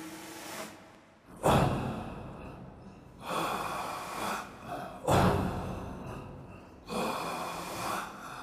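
Four breathy whooshes about two seconds apart, each starting suddenly and fading away; the first and third are the loudest.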